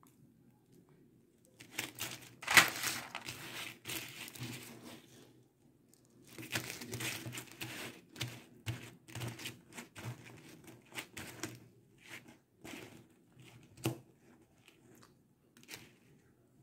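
Strings of tube beads clicking and rattling against each other and the table as a beaded net is handled and spread flat, in two stretches of rustling clicks followed by a few scattered clicks.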